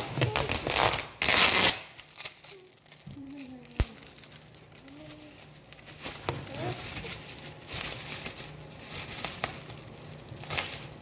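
Black plastic bag wrapping crinkling and rustling as it is pulled off a large box. It is loudest in the first two seconds, then goes on as quieter, broken rustling.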